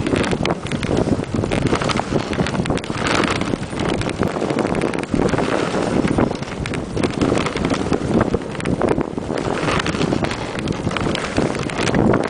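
Husky-drawn dog sled running over snow: a steady rushing noise with many small knocks and rattles from the sled, and wind buffeting the microphone.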